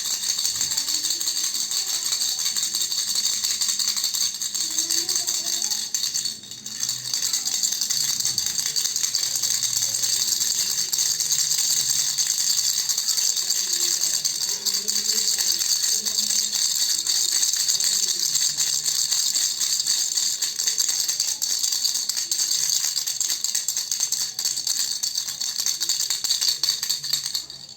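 Baby rattle (khulkhula) shaken steadily: a dense, continuous rattling of the beads inside, briefly interrupted about six and a half seconds in.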